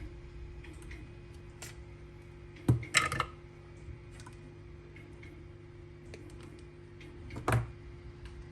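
Small tools and battery-pack parts being handled: scattered light clicks and ticks, a louder knock about three seconds in with a short clatter right after it, and another knock near the end, over a steady low hum.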